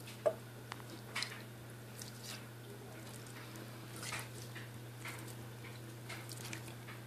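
Homemade glue-and-borax slime squelching and clicking softly as it is squeezed and pulled between the hands, a handful of short wet sounds scattered over several seconds.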